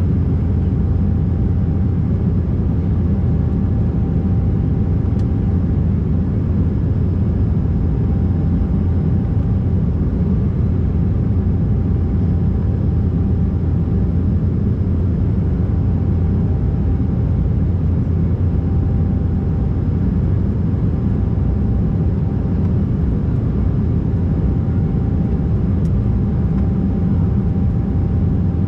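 Steady cabin noise inside an Embraer 190 jet airliner in flight: the deep, even rumble of its GE CF34 turbofan engines and the airflow past the fuselage, with a faint steady whine above it.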